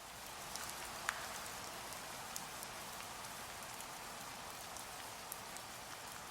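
Steady rain falling, with scattered sharp taps of single drops striking close by; the loudest tap comes about a second in.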